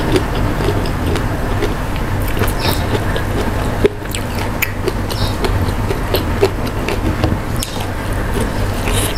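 Close-miked eating sounds: chewing of boiled spinach and sambal, with many small wet mouth clicks, over a steady low hum.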